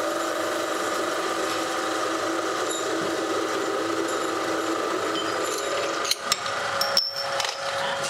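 Drill press running as a twist drill bores a cross hole through a steel pin clamped in a vise, a steady machine whine. About six seconds in the drilling sound stops and a few sharp knocks follow.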